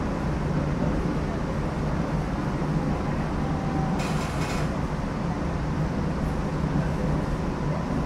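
Canal Street streetcar running along its rails: a steady low rumble of motors and wheels, with a short hiss about halfway through.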